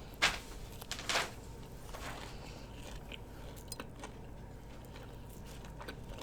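Close-up eating sounds: two crunchy bites in the first second or so, then quieter chewing with small clicks.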